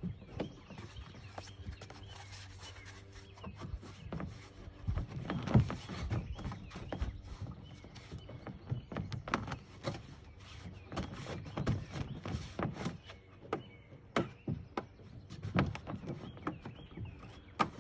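Irregular knocks, scuffs and rattles of hands working on a folding plastic kayak, stretching bungee cords over a foam cushion and hooking them in place.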